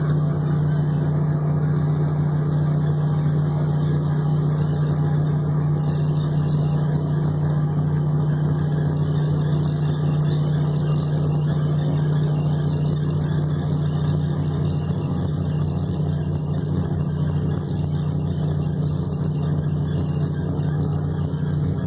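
A steady mechanical hum at one constant pitch, holding level without change.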